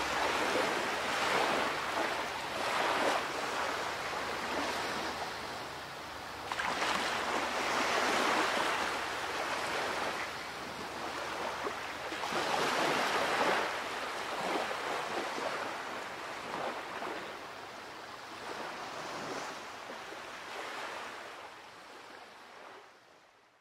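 Ocean surf: waves washing in, the rush swelling and ebbing every five or six seconds, fading out near the end.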